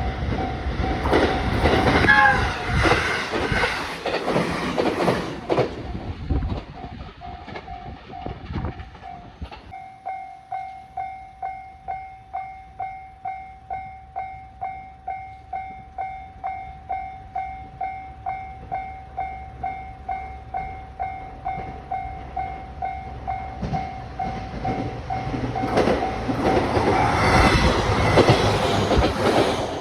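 A train passes, then a level-crossing warning bell rings alone, about two and a half strikes a second, until a second train passes near the end.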